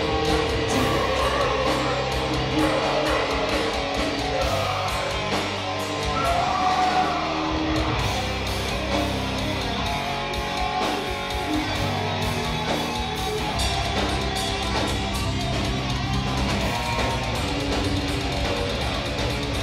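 Live death metal band playing: distorted electric guitars, bass and drums, with vocals at times, heard through the club's PA from out in the crowd.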